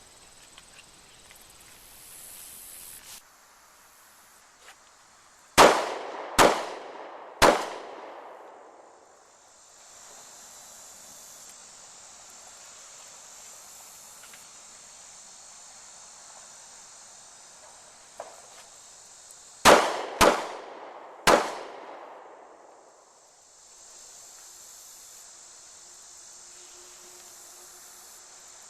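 Two strings of three pistol shots, each with ringing echo, about 14 seconds apart: in each string a quick pair, then a third shot about a second later, the failure drill's two to the body and one to the head. Insects chirr steadily in between.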